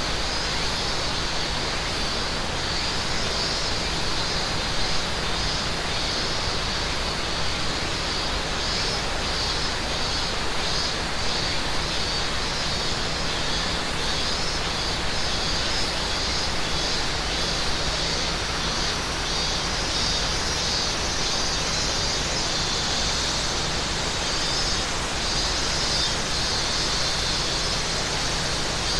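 Steady rush of a mountain river with summer cicadas calling over it, one cicada chorus pulsing in a high band and another buzzing steadily just below it.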